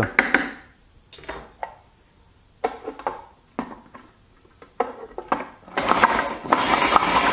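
A metal spoon knocks and scrapes against a plastic food-processor bowl, and the lid clicks on. About six seconds in, the food processor starts up, its blade churning frozen bananas and strawberries.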